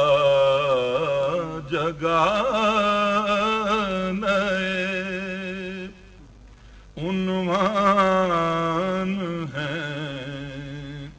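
A man's voice reciting an Urdu naat as a melodic chant, holding long wavering notes. There is a break of about a second just past the middle.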